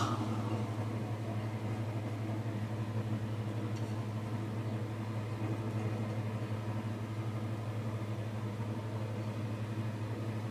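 A steady low mechanical hum, like a motor or fan running, unchanged throughout, with one faint click about four seconds in.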